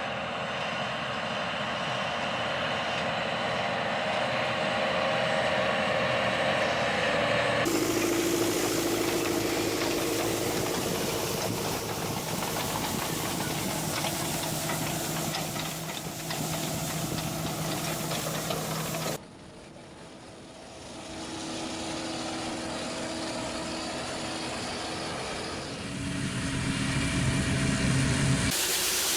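Farm machinery engines running steadily, across several clips that cut abruptly from one to the next.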